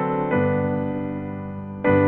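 A slow hymn tune played on piano: held chords that fade away, with a new chord struck about a third of a second in and another just before the end.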